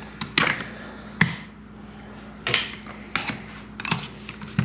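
Hand tools and a metal brake caliper clicking and knocking on a workbench: about seven sharp knocks spread over a few seconds as a bar clamp is taken off the caliper and set down and a screwdriver works at the caliper, over a steady low hum.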